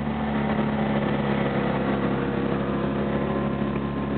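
Fiat 500's engine running steadily under way, heard from inside the cabin, with an even pitch and no revving.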